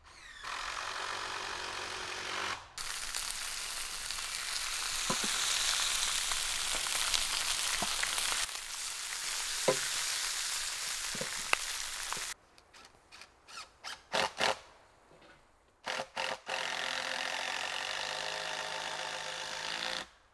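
Vegetables sizzling on a hot pan over a wood fire: a steady frying hiss with a few sharp clicks. Near the end comes a steady, pitched hum of another kind.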